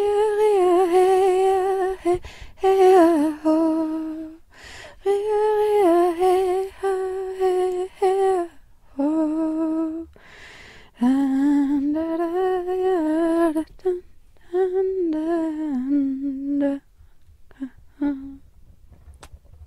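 A single voice humming a slow, wordless melody in held notes, phrase after phrase of one to three seconds with short pauses between them. It trails off about seventeen seconds in.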